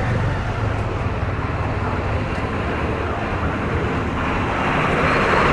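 City street traffic: a steady low rumble of passing engines, growing a little louder near the end.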